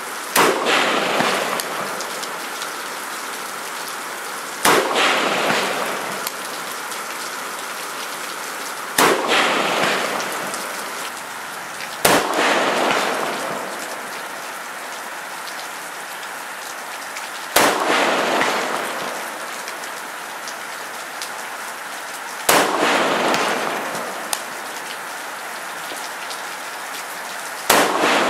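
Seven single rifle shots from a 20-inch AR-15 in 5.56×45 mm, fired one at a time every three to five seconds. Each is a sharp crack followed by a rush of noise that dies away over a second or two, over a steady hiss.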